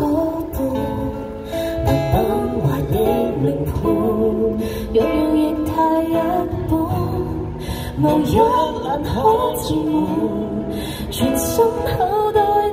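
A woman singing a song live to acoustic guitar accompaniment.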